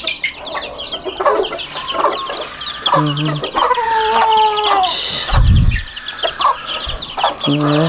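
A brood of young chicks peeping constantly, with adult chickens clucking over them and one longer drawn-out call near the middle. A low bump sounds about five and a half seconds in.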